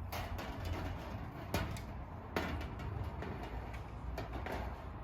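A gazebo roof panel being worked into its frame: a few sharp knocks and scrapes, the strongest about one and a half and two and a half seconds in, over a low steady rumble.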